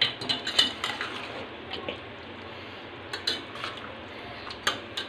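Steel spoon clinking and scraping against a stainless steel pot while stirring thick chicken and masala. There is a quick cluster of clinks in the first second, then scattered single clinks through the rest.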